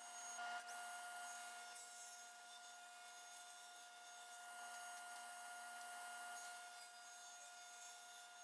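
Table saw running faintly with a steady whine as boards are ripped to width against the fence.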